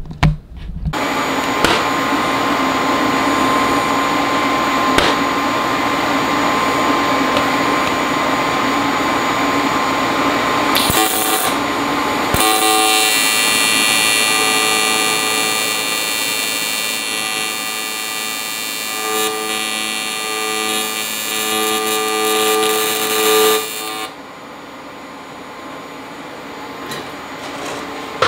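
TIG welding arc on an aluminium fan shroud: a steady electric buzz with hiss. It breaks briefly and changes tone about twelve seconds in, then stops about four seconds before the end, leaving a quieter hum.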